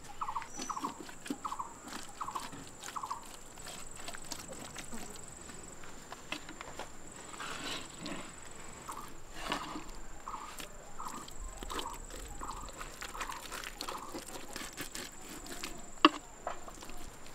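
Wet squelching and patting as hands rub a thick spice marinade into a whole raw goat carcass. In the background, something chirps in quick trains of short calls, a steady thin high tone runs, and there is one sharp click near the end.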